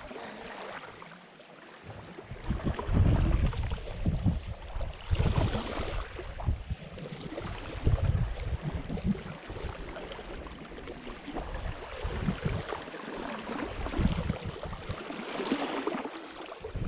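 Water sloshing and splashing around a kayak's hull, coming in irregular swells of low rushing noise.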